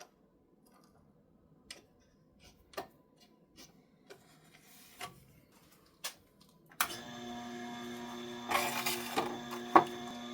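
A few light clicks and knocks of tools being handled. Then, about two-thirds in, a Tormek T-8 wet sharpener's motor switches on and runs with a steady hum, with a brief scraping sound and a sharp click soon after.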